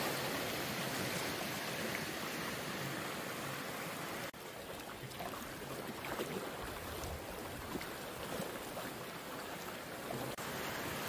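Floodwater from a breached lake rushing and churning across a submerged road: a steady rush of water noise. The rushing drops out briefly twice, about four and ten seconds in.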